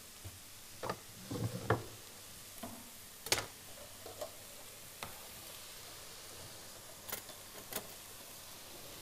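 Faint, sparse kitchen clatter: a handful of irregular knocks and taps of utensils, with one sharper knock about three seconds in.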